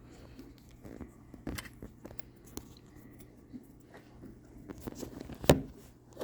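Light clicks and scrapes of metal tweezers handling a small plastic Samsung fast-charger cube, with one sharp click about five and a half seconds in.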